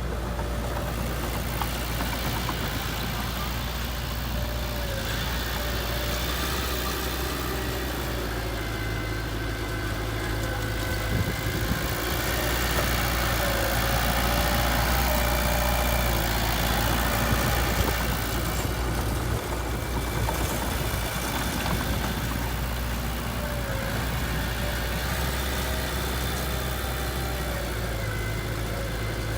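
Heavy diesel engine idling steadily, growing a little louder for a few seconds midway.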